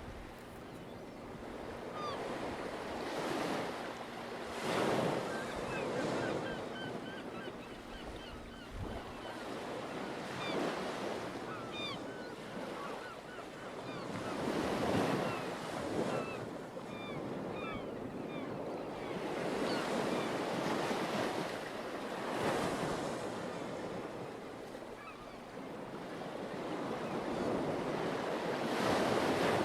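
Ocean surf washing onto a shore, swelling and falling back every few seconds, with short high chirps scattered through it. A faint steady hum sits under the first third.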